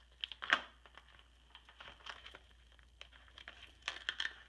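Clear plastic page protectors in a ring-bound scrapbook album crinkling and crackling as the pages are turned and handled, in short scattered bursts. The loudest crinkle comes about half a second in, and a quick run of small crackles comes near the end.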